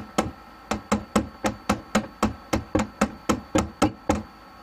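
Hammer driving a nail into wood: a quick, even run of sharp blows, about four a second.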